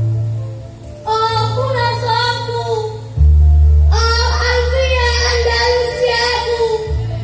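Choir of young male and female students singing a devotional march, with a short pause between phrases about a second in. Sustained low bass notes accompany the singing and step down to a deeper note about three seconds in.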